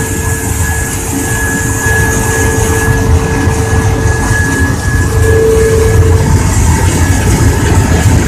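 Raymond grinding mill running: a loud, steady heavy rumble with a constant whine held over it.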